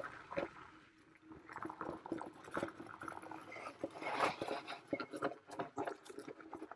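Varla Eagle One Pro electric scooter rolling over a rocky dirt trail: the tyres crackle and knock irregularly on stones and gravel, with scattered clicks and rattles. It goes briefly quieter about a second in.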